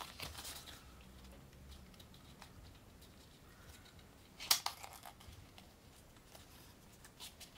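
Folded paper card of a Foldscope paper microscope handled and pressed down by hand: faint paper rustling and small ticks, with one sharp click about four and a half seconds in.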